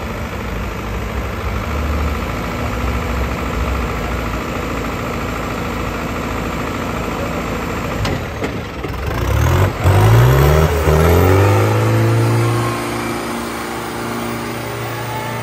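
Diesel tractor engines idling with a low rumble, then revving up hard about nine seconds in, the pitch climbing quickly. They then hold high revs under load as the tug-of-war pull gets going.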